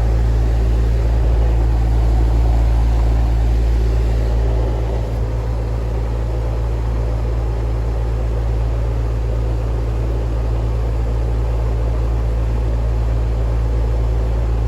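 Steady low mechanical hum of running rooftop air-conditioning equipment, with a single click at the start.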